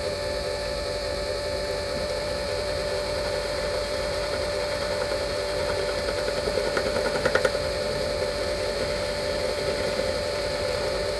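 Small lathe running with a steady motor hum while a hand graver turns down a 2 mm mild steel rod; a brief patch of light rapid cutting chatter comes about seven seconds in.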